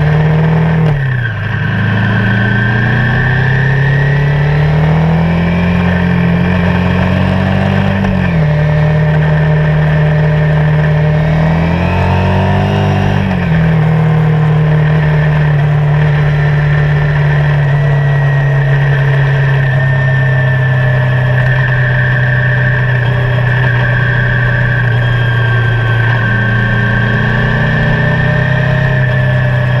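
Motorcycle engine pulling through the gears at road speed. Its pitch climbs and drops at upshifts about a second in, around eight seconds and around thirteen seconds, then holds steady at cruise.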